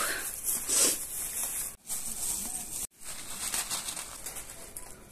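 Black plastic carry bag and newspaper snack packet rustling and crinkling as a hand reaches in for sev bhujia, broken twice by a brief silence.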